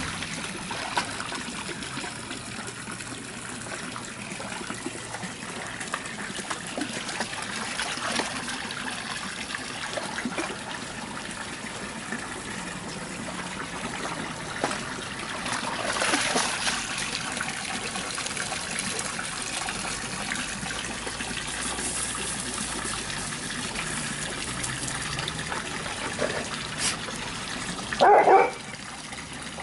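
Steady trickle of running water, with scattered faint knocks, and a single loud dog bark near the end.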